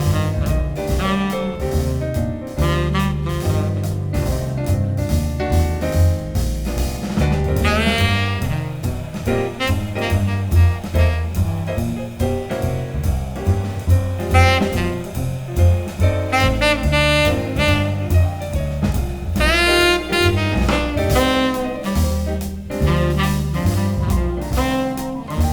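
Instrumental jazz with a saxophone solo over upright bass and drum kit, the saxophone playing several rising and falling runs.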